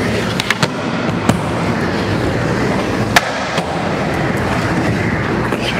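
Skateboard rolling on a wooden mini ramp, a steady rumble of the wheels, broken by several sharp clacks of the board striking the ramp and its metal coping; the sharpest comes about three seconds in. The clacks are a backside disaster revert being done on the coping.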